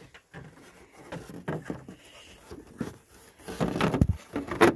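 Handling noise of a plastic taillight assembly being lined up in the car body: scattered light knocks and rubs, with a louder rub and a sharp knock near the end.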